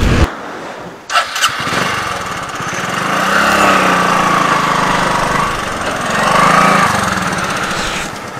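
Small motorcycle engine running and revving up twice, after two sharp clicks about a second in.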